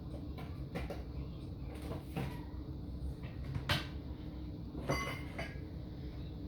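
Handling of small plastic model parts: a few light clicks and scrapes, the sharpest about halfway through and another a second later, over a steady low hum.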